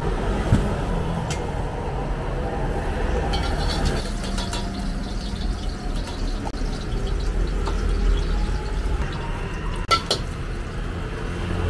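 Gas wok burner running steadily under a wok, while a metal ladle clinks and scrapes against it, with sharp clinks about half a second in and again near the end.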